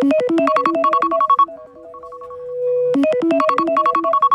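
A ringtone-style electronic melody of quick, bright notes, looping about every three seconds. Each loop is a loud run of notes followed by a quieter stretch over one held note.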